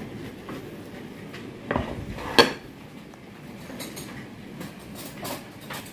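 Ceramic dishes and cutlery handled on a hard kitchen countertop: two sharp knocks less than a second apart, the second louder, then several lighter clinks.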